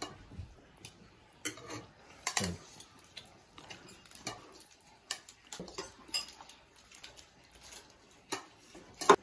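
Forks clinking and scraping against ceramic bowls as noodles are scooped up, in irregular light clicks, with a sharper clink near the end.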